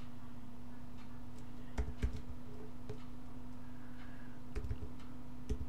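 A few computer keyboard keystrokes in small clusters, about two seconds in, again past four seconds and near the end, as a user name is typed. Under them is a steady low hum.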